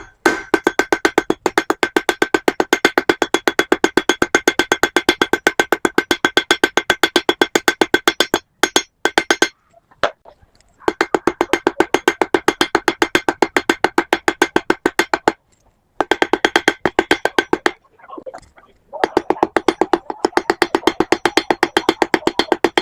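Blacksmith's hand hammer striking hot round iron stock on an anvil in quick, even blows, about five a second, each with a metallic ring, drawing the end out to a point. The hammering stops briefly three times, about nine, fifteen and eighteen seconds in.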